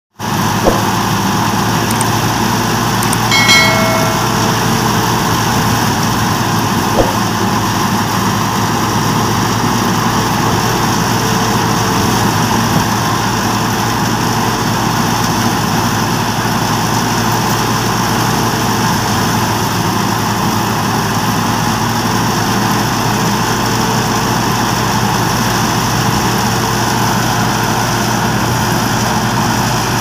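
A tractor-driven wheat thresher running steadily: the tractor's diesel engine working under load to turn the threshing drum, with a continuous mechanical drone. A brief pitched tone sounds about three and a half seconds in.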